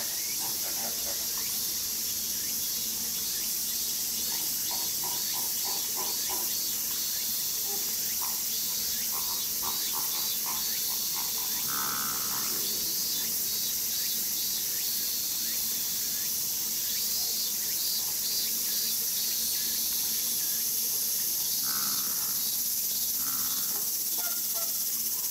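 Steady high-pitched drone of insects, with flamingos calling over it: runs of quick, short chattering calls in the first half, and a fuller honk about halfway through and again near the end.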